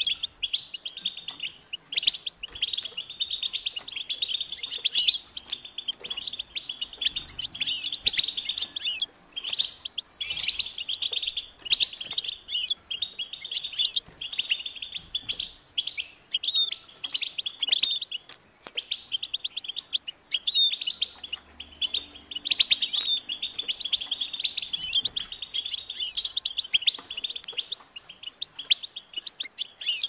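European goldfinch singing: a fast run of high chirps, twitters and trills, broken by short pauses.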